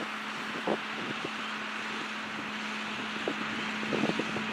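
Engine of track maintenance machinery idling with a steady hum, with a few short knocks of work on the track now and then.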